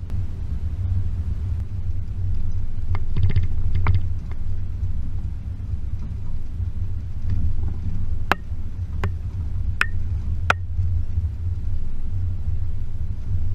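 Range Rover P38's 4.0 V8 and tyres running along a rough lane, a steady low rumble, with a few knocks about three seconds in and four sharp clicks between about eight and ten and a half seconds in.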